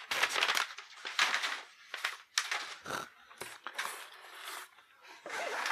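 Crumpled brown kraft packing paper rustling and crinkling as it is handled and pulled out of a cardboard shipping box, in irregular bursts with a couple of light knocks and a quieter stretch in the middle.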